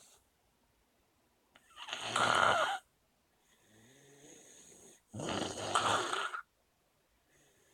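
Snoring: two loud snoring breaths about three and a half seconds apart, each lasting over a second, with a softer, lower breath between them.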